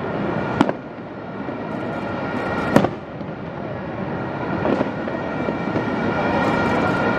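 Fireworks display: aerial shells bursting with sharp bangs about half a second in and near three seconds, a weaker one a little later, over continuous crackling.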